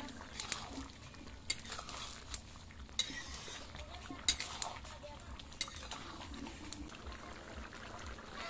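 A metal spoon stirring curry in a cooking pan, clinking and knocking against the pan about eight times at irregular intervals.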